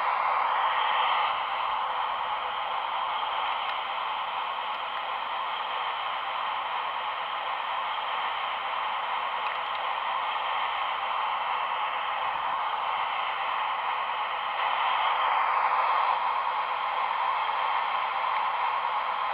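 Small electric motors and gearing of radio-controlled model machines running with a steady hiss-like whir. It is louder at the start and again from about fifteen seconds in.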